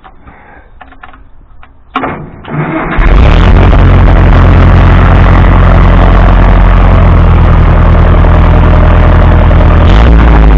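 Case 350 tractor engine cranked over about two seconds in, catching within a second and then running loud and steady through its newly made exhaust pipe and relocated muffler.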